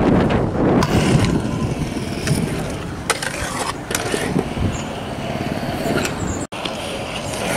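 Stunt scooter wheels rolling and clacking on concrete ramps, with several sharp knocks from the deck and wheels hitting the surface. The wheel has a chunk out of it and its bearings are shot. Wind buffets the microphone throughout.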